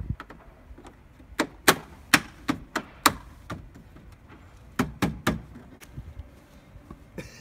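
A run of sharp clicks, about three a second, then after a short pause three more in quick succession.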